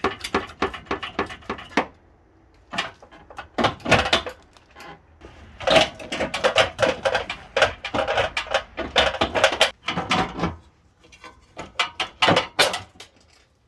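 Hand tools working on the car's metal parts: bursts of rapid clicking and clanking, each lasting a second or two, with short quiet gaps between them.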